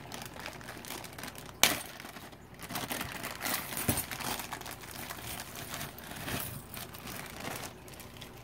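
Small clear plastic bag being opened and handled, crinkling irregularly, with one sharp snap about one and a half seconds in.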